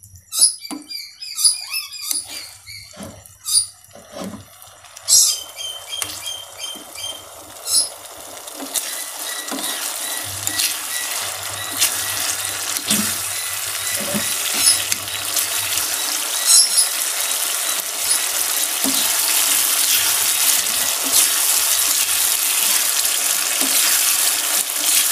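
Sambal bajak (chili paste) frying in oil in a small pan, the sizzle building over the first several seconds into a steady hiss. A metal spoon scrapes and knocks against the pan as it is stirred; the knocks stand out most at the start.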